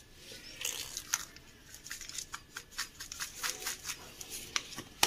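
Black salt being shaken out of a plastic sprinkler shaker into a glass of juice: a run of light, irregular ticks and rattles, starting about half a second in and stopping near the end.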